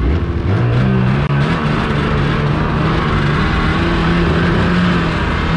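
Snowmobile engine pulling away. Its pitch climbs over the first second or so, then it runs steadily at speed.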